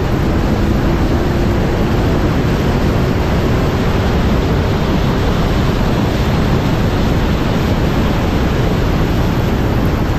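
Loud, steady rush of wind and road noise on a car-mounted camera's microphone at speed, with a faint engine hum underneath that fades midway.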